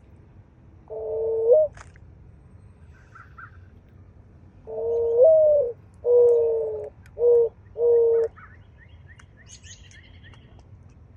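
A dove cooing: a single coo that lifts at its end, then a phrase of a longer up-slurred coo followed by three shorter coos. Faint high chirps of smaller birds come near the end.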